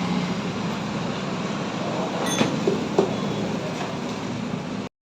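Steady background rumble with a few light clicks of small engine parts being handled, about two to three seconds in; the sound cuts off abruptly near the end.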